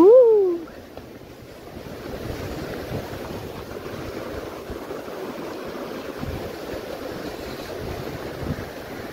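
Wind buffeting the microphone in a steady, gusty rush. It opens with a short, loud pitched sound that slides up and then back down.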